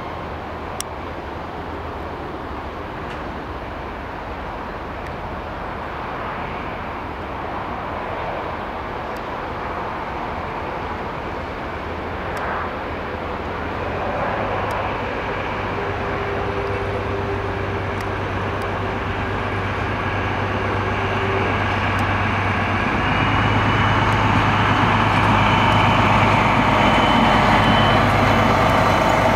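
DB class 218 diesel-hydraulic locomotive running its diesel engine while hauling a Kirow rail crane, growing steadily louder as it draws near and passes. A steady whine sounds for several seconds in the middle.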